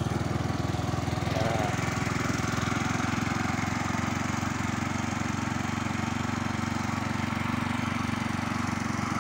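Suzuki Nex four-stroke single-cylinder scooter engine, swapped into a Vespa PX, idling steadily just after an electric start. The note is not as rough as a Vespa's.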